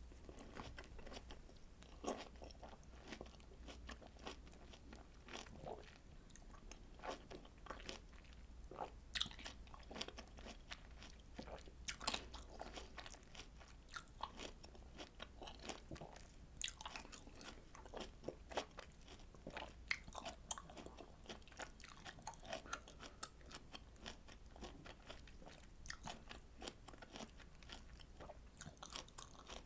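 Close-miked chewing and biting of citrus fruit: a quiet, continuous, irregular run of small crackling clicks.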